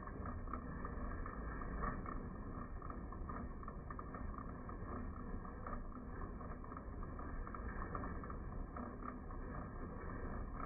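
Drill press running with its bit boring through a steel bar, a steady cutting noise as steel chips curl off.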